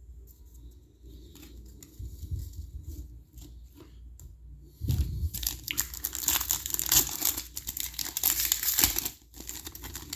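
A trading-card pack wrapper being torn open and crinkled by hand: quiet handling at first, then loud crackling tearing and crinkling from about halfway through for some four seconds, dying away near the end.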